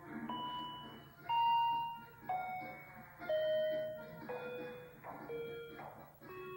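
Background music: a slow melody of held, bell-like synth notes, about one a second, mostly stepping down in pitch.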